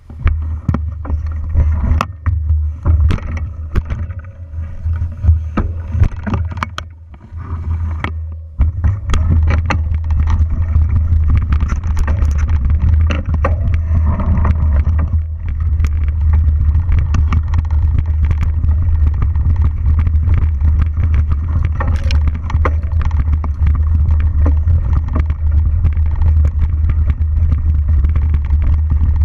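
A mountain bike rolling over a dirt forest trail, recorded by an action camera mounted on the bike: a steady low rumble of wind and motion on the microphone, with frequent clicks, knocks and rattles from the bike over rough ground. In the first several seconds the rumble comes and goes with sharper knocks, then it runs steady from about eight seconds in.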